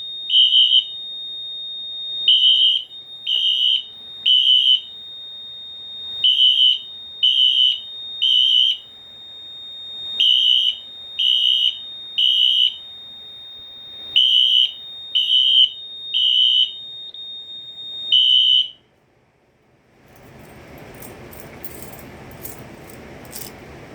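Fire alarm horns sounding in sync in the temporal-three (code 3) pattern: three high beeps, a pause, then three again, over a steady high tone. The alarm cuts off suddenly about three-quarters of the way through, followed by a moment of quiet and then rustling and clicks.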